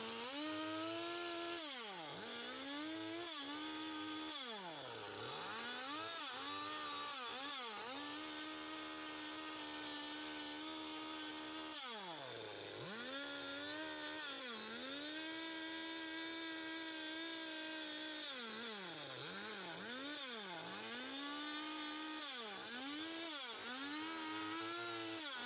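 Stihl two-stroke gas chainsaw rounding and shaping wood, revving up and down over and over. It holds at full throttle for a few seconds at a time, then drops back toward idle between passes.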